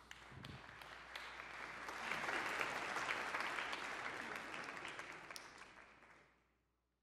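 Congregation applauding, many hands clapping together; the clapping swells over the first two seconds or so, then fades away in the last second or two.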